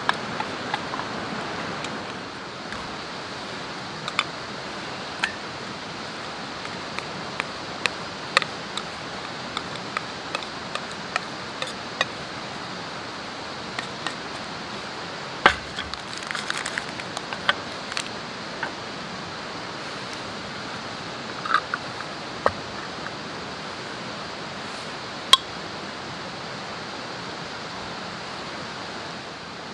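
Chopsticks and a wooden spatula clicking and scraping against a stainless steel bowl as food is stirred by hand, in scattered sharp clinks. Under them runs a steady rushing hiss.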